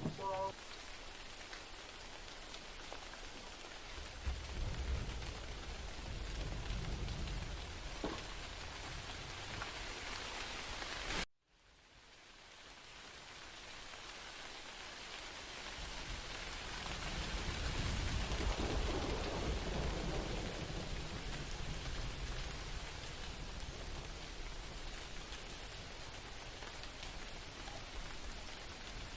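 Steady rain falling, with low rumbling swells underneath twice. About eleven seconds in the sound cuts out abruptly and fades back in.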